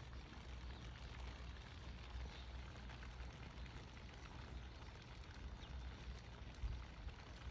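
Light rain falling on pavement: a faint steady hiss with scattered small drop ticks, over a steady low rumble.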